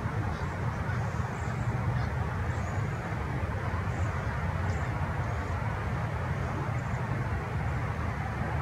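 Steady low outdoor rumble with faint, scattered high chirps of small birds.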